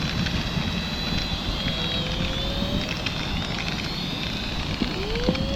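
Small RC quadcopter drone's propellers whining steadily, the pitch wavering slightly, over a low wind-like rumble. A lower tone slides up in pitch now and then.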